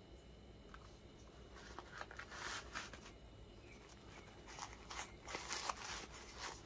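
Faint rustling and crinkling of a sneaker's tissue-paper stuffing and fabric upper as hands rummage inside the shoe. It comes in two spells, from about a second and a half in and from about four and a half seconds in, and the second spell is the stronger.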